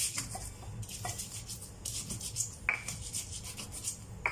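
Stone pestle grinding bird's eye chilies, garlic and shallots with salt in a stone mortar (ulekan and cobek): gritty scraping strokes in spells of about a second, with a short knock of the pestle now and then. This is the hand-grinding of a spice paste.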